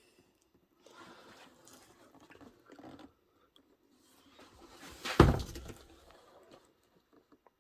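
Cardboard box being handled: faint rustling and scuffing, then one loud thump a little after five seconds in.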